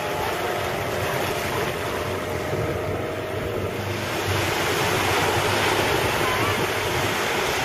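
Steady wind rushing over the microphone with waves washing, and the faint drone of the speedboat's motor underneath as it tows the banana boat.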